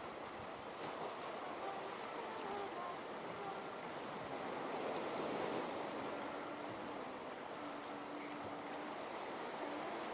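Steady rushing outdoor noise, with a faint melody of held notes that step from one pitch to another underneath it.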